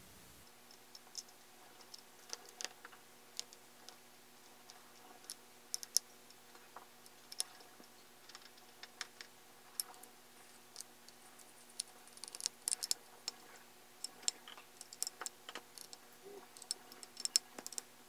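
Scattered light clicks and ticks of a small screwdriver turning the four screws into the metal cover of a string trimmer's diaphragm carburetor, with small metal parts tapping as they are handled. The clicks come irregularly and grow more frequent near the end.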